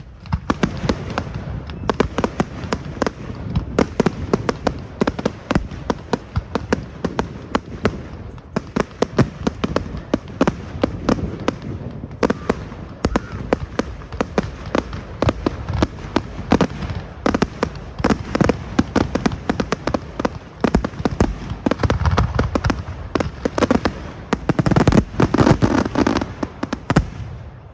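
Fireworks display going off: a dense, rapid stream of crackles and bangs, with heavier booms about 22 seconds in and the loudest stretch near the end.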